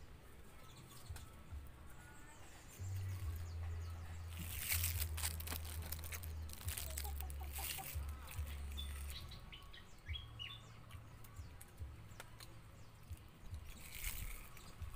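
Low rumbling and handling rustles on the microphone, with a few short faint bird chirps about halfway through.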